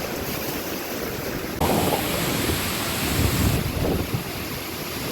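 Hurricane wind gusting with driving rain, the wind buffeting the microphone. A stronger gust comes in suddenly about a second and a half in and rumbles on through the middle.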